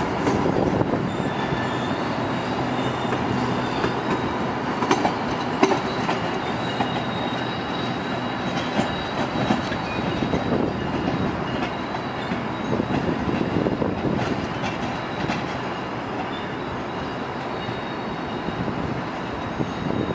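GO Transit bilevel passenger coaches rolling over the station tracks: a steady wheel-on-rail rumble with thin, high wheel squeal that comes and goes, and scattered clicks over rail joints and switches.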